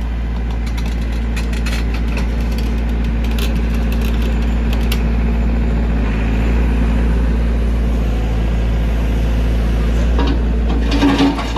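Tracked excavator's diesel engine running steadily, heard from beside the cab as a deep, even drone. Near the end a louder, rougher engine sound with knocks takes over.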